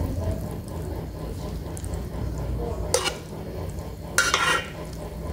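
A metal spoon stirring and turning sauce-coated instant noodles in a pot, with a sharp clink about three seconds in and a louder scrape of the spoon against the pot near the end.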